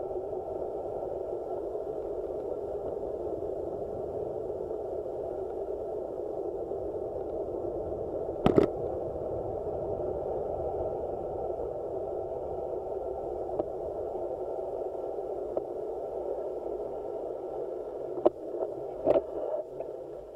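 Wind and rolling noise picked up by a handlebar-mounted action camera on a road bike going downhill: a steady muffled rush. There is a single sharp knock about eight seconds in, a few clicks near the end, and the rush fades as the bike slows almost to a stop.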